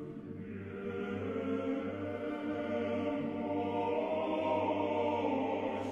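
Background choral chant: voices holding long notes over a steady low drone, growing louder through the first second or two.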